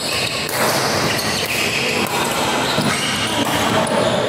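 Badminton doubles rally: rackets striking the shuttlecock in short sharp hits, with players' feet moving on the court.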